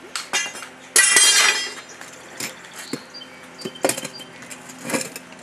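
Metal clanging and clinking: one loud ringing clang about a second in, then a few lighter knocks and clinks.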